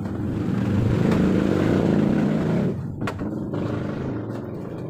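A motor vehicle's engine running and passing by, swelling louder and then fading after about two and a half seconds, with a few sharp clicks near the middle.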